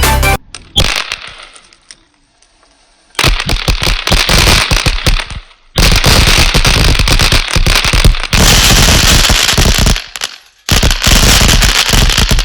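Many 'pop pop' bang-snap firecrackers going off in a rapid, dense crackle of snaps. It comes in four runs: a short one at the start, then three long ones beginning about three, six and ten and a half seconds in, with brief lulls between them.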